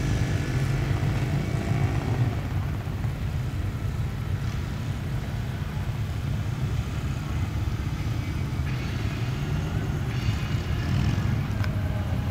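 Motorcycles riding by in a line, their engines making a steady low rumble, with one engine note rising in the first couple of seconds.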